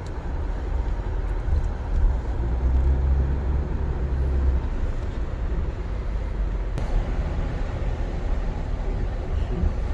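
Car's road noise heard from inside the cabin: a steady rumble of tyres and engine while driving, growing heavier for a second or two about three seconds in.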